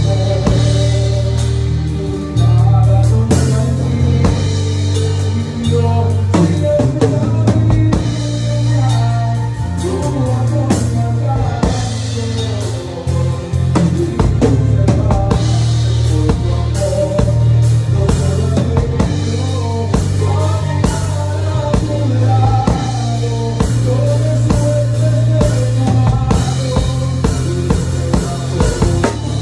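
DW Design Series maple drum kit and Zildjian cymbals played along to a recorded song: frequent drum and cymbal hits over a steady bass line and melody.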